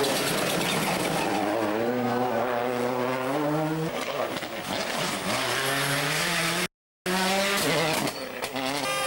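Rally car's turbocharged four-cylinder World Rally Car engine under hard acceleration: the engine note climbs, falls back at a gear change and climbs again. The sound cuts out abruptly for a moment about two-thirds of the way through, then the engine comes back.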